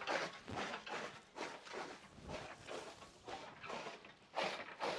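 Hand-cranked chaff cutter chopping green fodder stalks: a run of uneven sharp cuts mixed with the rustle of stalks being fed in.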